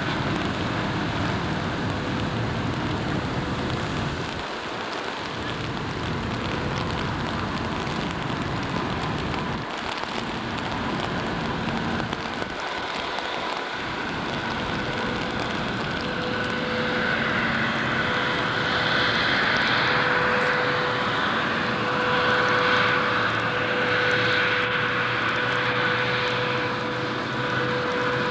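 Incat 045 catamaran ferry's engines running as it gets under way: a steady hum over a hiss. A higher whine builds and grows louder after about seventeen seconds.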